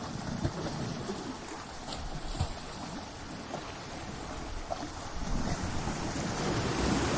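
Ocean surf: waves breaking and washing on a shore, a steady rushing noise that swells louder near the end as a bigger wave comes in.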